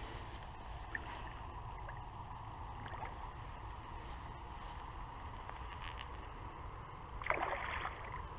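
Steady low outdoor rumble with a faint even hum, a few faint clicks, and a brief louder rustle about seven seconds in, as a soft lure is worked on a spinning rod from a riverbank.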